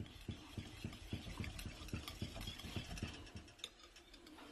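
Wire whisk beating yogurt in a glass bowl, its wires swishing and tapping the bowl in quick, even strokes of about five a second. Faint.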